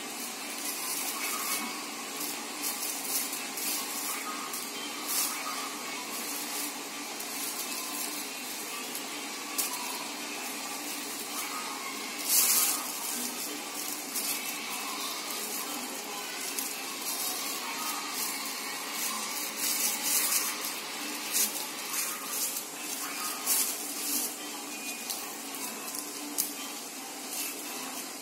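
Thin plastic bags rustling and crinkling now and then as a small child's hands pick leafy greens out of them, over a steady background noise.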